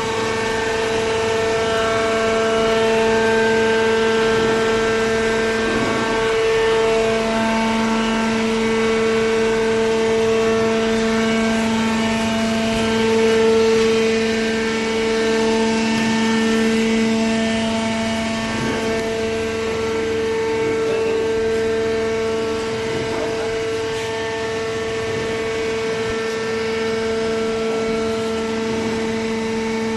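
Horizontal hydraulic cardboard baler running, giving a loud, steady machine hum with a strong pitched drone; a lower tone strengthens about six seconds in.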